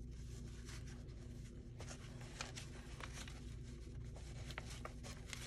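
Paper pages of a handmade journal being handled, with a few light, scattered rustles and taps over a steady low hum.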